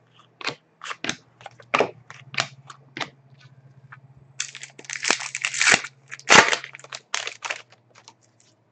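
Hockey trading cards being flicked and laid down one at a time with sharp snaps, about every half second. Past the halfway point comes a longer burst of crinkling from a foil card pack wrapper, then a loud snap and more crinkling.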